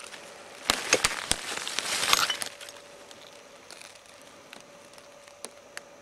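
Glass bottles clinking and dry leaf litter crackling as they are disturbed, in a dense burst of about two seconds, followed near the end by two single clinks.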